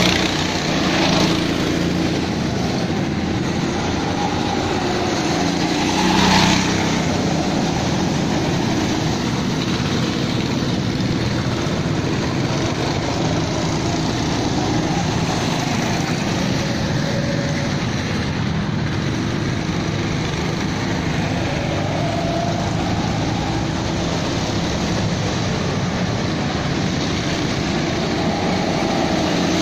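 Go-kart engines running round the track, louder as a kart passes close about a second in and again about six seconds in, with the engine pitch rising and falling as the karts speed up and slow for the corners.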